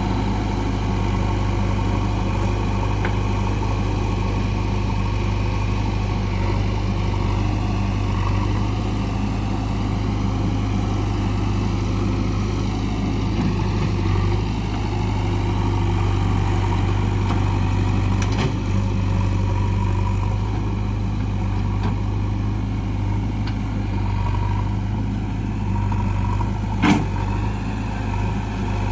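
Diesel engine of heavy earthmoving or farm machinery running steadily, with one sharp knock near the end.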